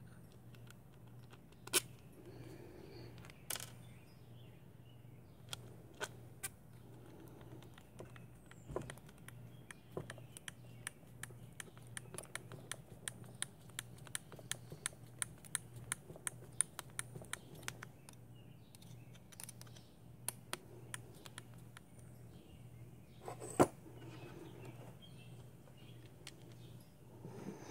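Light metallic clicks and taps from a 2 mm hex driver turning button-head cap screws through aluminium wing buttons into a plastic RC car wing. There is a quick run of small clicks, a couple a second, in the middle, with a few sharper taps before and after.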